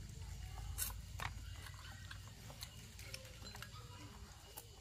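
Faint, scattered clicks of eating utensils against bowls during a meal, a few separate taps over a low steady hum.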